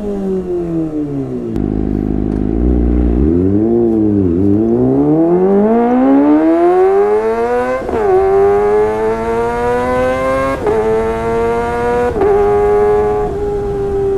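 Kawasaki ZX-25R's 250 cc inline-four through a Sportisi Motorsport SRX aftermarket exhaust. The revs fall away at first and dip briefly, then the bike accelerates through the gears: long rising revs each cut by a quick drop at three upshifts, before settling to a steadier note near the end.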